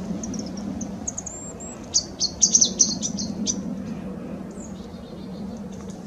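Small songbirds calling: a string of thin, high, short notes, then a quick burst of louder, sharp calls about two seconds in, over a steady low background hum.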